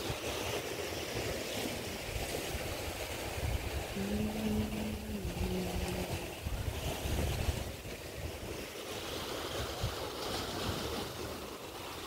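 Sea waves washing against a rocky shore, with some wind on the microphone. About four seconds in, a low steady tone sounds for about two and a half seconds, dropping slightly in pitch partway through.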